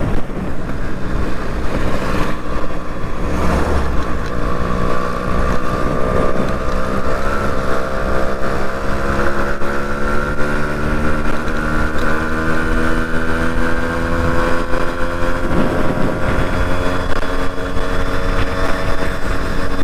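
Yamaha RX two-stroke single-cylinder motorcycle engine running under way, its pitch rising slowly for about ten seconds as the bike gains speed, then holding steady. Wind rumbles on the microphone underneath.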